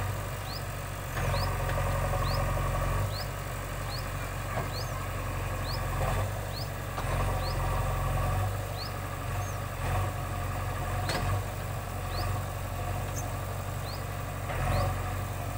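Diesel engine of a JCB backhoe loader running steadily with a low drone, with a few brief knocks. A high, short rising chirp repeats about twice a second over it.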